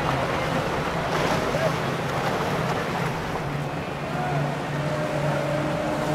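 Boat engine running with a steady low drone, under wind and water noise, with faint voices at times.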